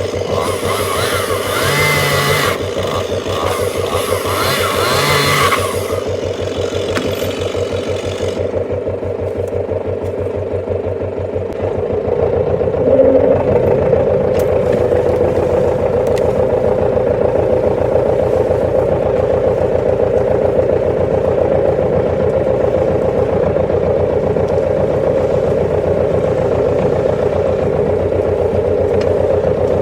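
Tractor engine running steadily, louder and fuller from about twelve seconds in, as if taken up to working speed. For the first six seconds a higher-pitched engine revs and wavers over it.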